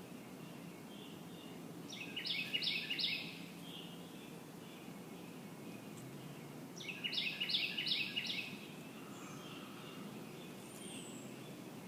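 A songbird singing two short phrases a few seconds apart, each a quick run of about four down-slurred notes, over steady outdoor background noise.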